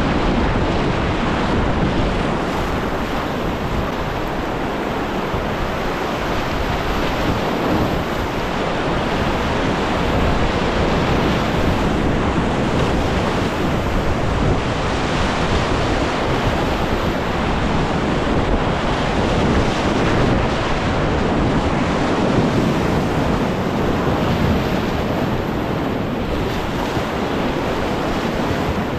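Whitewater rapids of the Upper Nantahala River rushing steadily, heard up close from an open canoe running the river.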